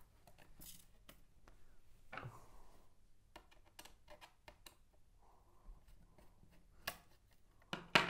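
Fingers prying at the edge of a laptop's bottom cover to release it, giving scattered small clicks and scrapes, with a louder scraping rustle about two seconds in and a louder knock just before the end.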